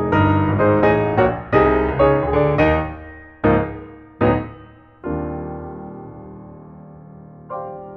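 Background piano music: a quick run of struck notes and chords, then a chord about five seconds in left to ring and slowly fade, with another chord struck near the end.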